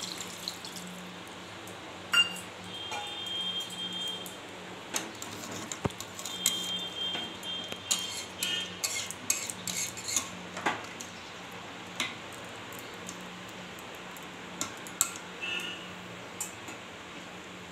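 A metal spoon stirring watery chicken curry in an aluminium pressure cooker, with scattered clinks and scrapes against the pot, some of them ringing briefly.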